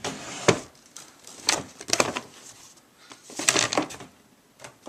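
A few short knocks and clatters spaced about a second apart, with scraping and rustling between them.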